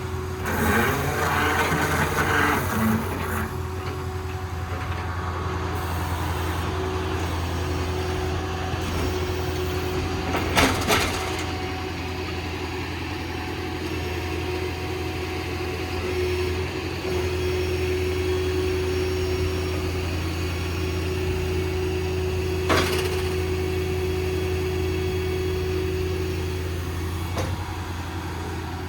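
Ford F-550's 6.7 L diesel running steadily, driving the hydraulic system of a Stellar 7621 service crane, with a steady whine over the engine hum that stops near the end. Two sharp clunks, about ten seconds in and about twenty-three seconds in.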